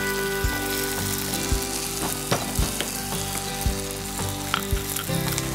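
Steady sizzling of an onion-tomato gravy base cooking in a clay pot, with a few irregular sharp knocks from a stone mortar and pestle being handled for pounding garlic.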